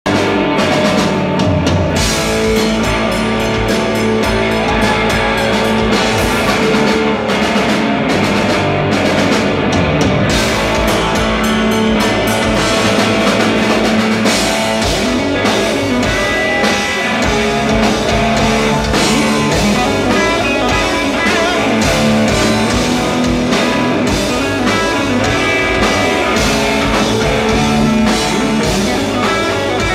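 Live rock band playing loudly: electric guitar through Marshall amplifiers, electric bass and a large drum kit, heard from the audience in a theatre.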